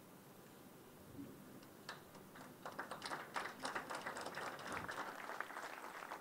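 Audience applauding: scattered claps come in about two seconds in and build into steady applause.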